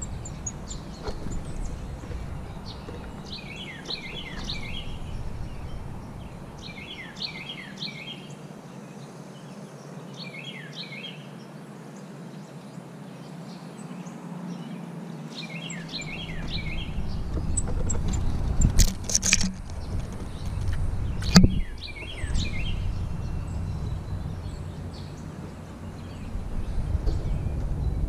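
A small songbird calling, a short phrase of quick descending notes, five times a few seconds apart over a low rumble. Two sharp knocks near the middle.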